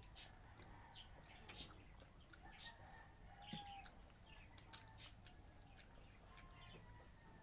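Near silence: faint scattered clicks of chewing and eating by hand, with a faint bird call a little past halfway.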